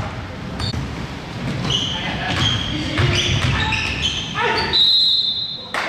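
Basketball game sounds on a gym court: the ball bouncing and sneakers squeaking in short high chirps, then a referee's whistle blown once for about a second near the end.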